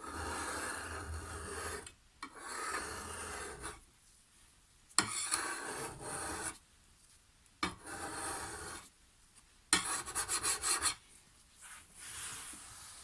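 Fine wet and dry sandpaper rubbed back and forth over a hedge trimmer's metal blade top bar to smooth it flush, in bursts of scraping strokes; about ten seconds in comes a run of short, quick strokes.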